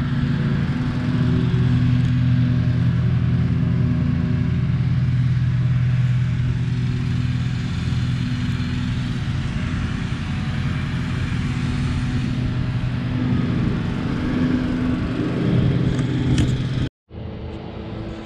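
Engine running steadily with a low, even hum, swelling slightly a few seconds before the end, then stopping abruptly near the end, followed by a quieter, different engine hum.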